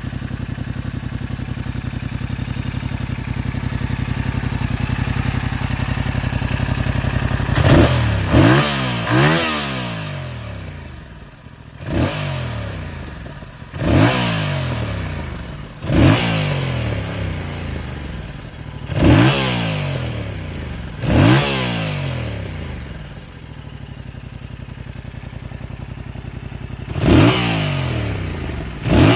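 2025 Yamaha MT-07 with its stock exhaust: the 689 cc parallel-twin engine idles steadily for about seven seconds, then is revved in a series of about nine short throttle blips. Each blip climbs sharply in pitch and falls back to idle.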